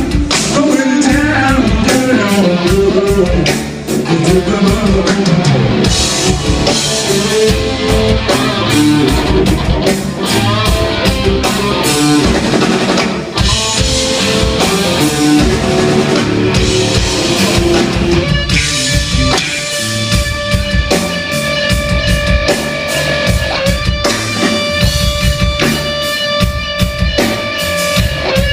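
Rock band playing live: electric guitar over a drum kit with a steady beat, the guitar line bending and wavering in pitch. From about two-thirds of the way through it settles into long sustained ringing notes.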